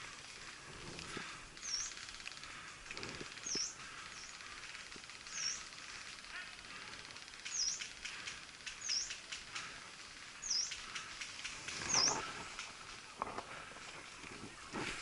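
A bird repeats a short, high call about seven times, each call dipping and rising in pitch, every one to two seconds. Rustling and brushing noises come and go, loudest about twelve seconds in.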